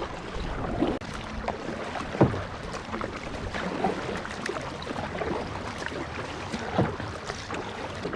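Kayak paddle dipping into lake water, with small splashes and drips; the strongest splashes come about two seconds in and again near the end.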